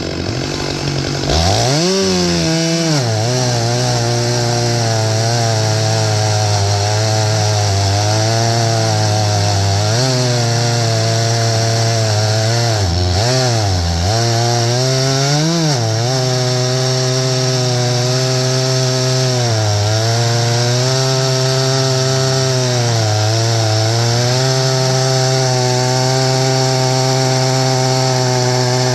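Stihl MS661 two-stroke chainsaw running at full throttle in an Alaskan mill, its 36-inch bar and full-chisel chain ripping lengthwise through a pine log. The engine note sags and recovers several times as the load in the cut changes, and gets louder about a second and a half in.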